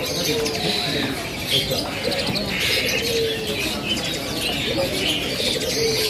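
Many caged birds calling at once: a dense mix of high chirps and whistles, with low cooing notes repeating underneath.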